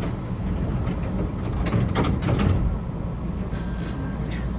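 Hankyu electric train running along the track, heard from inside the front car: a steady low rolling rumble with a cluster of sharp clicks about two seconds in, typical of wheels crossing rail joints. A thin high-pitched tone sounds for about a second near the end.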